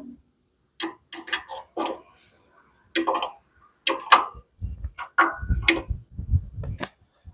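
A run of about a dozen sharp clicks and knocks at irregular spacing, with duller thuds in the second half, from hand tools working on the rotavator's chain-adjuster bolt and lock nut.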